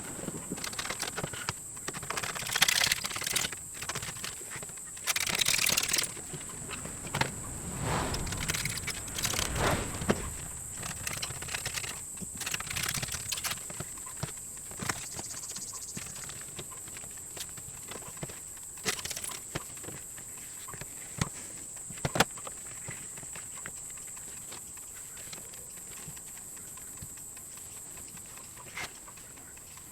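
Leather being cut out by hand: irregular scraping strokes and knocks of tools on the bench, busiest in the first half and thinning out later, with a couple of sharp clicks. A steady high-pitched hiss runs underneath.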